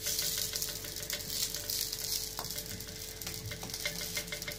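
Small barley-grit harcha (belboula flatbreads) sizzling in hot oil in a frying pan, with light clicks and scrapes of a slotted metal spatula as they are turned over.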